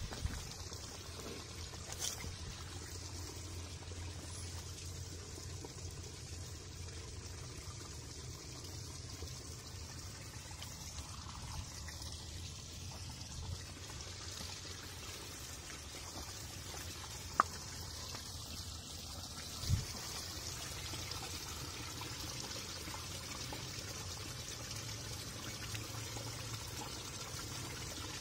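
Shallow woodland creek trickling over rocks, a steady even hiss of running water. A few sharp brief knocks stand out, the loudest about two-thirds of the way through.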